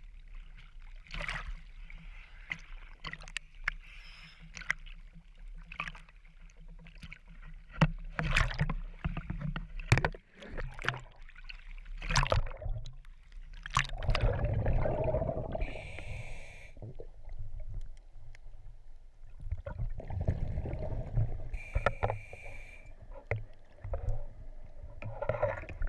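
Small waves slapping and splashing against a camera held at the water's surface, in uneven sloshes and knocks, with a few sharper splashes about eight and ten seconds in.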